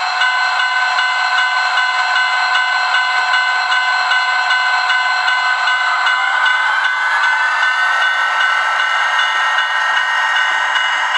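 Sound-equipped DCC model of a GE Dash 8-40 diesel locomotive, its on-board speaker playing the diesel engine sound: a thin, bass-less running note with a regular ticking beat. About six seconds in the engine sound rises as the locomotive throttles up and pulls away.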